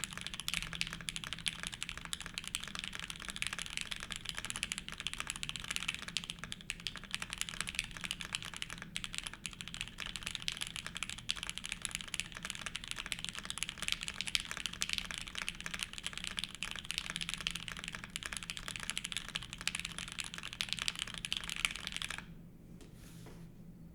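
Fast, continuous typing on a mechanical keyboard with Gateron Deep Ink switches on 62g progressive springs, an aluminium plate and GMK keycaps: a dense run of keystroke clacks. The typing stops about two seconds before the end.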